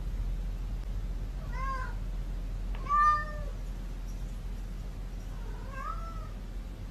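A domestic cat meowing three times, each call rising and then falling in pitch; the middle one, about three seconds in, is the loudest. A low steady hum runs underneath.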